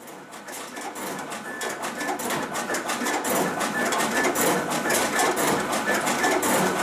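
SCCP B digital finishing machine (a slitter, cutter and creaser) starting up: its whir builds over the first couple of seconds, then settles into a steady mechanical clatter with rapid clicking as sheets begin feeding through.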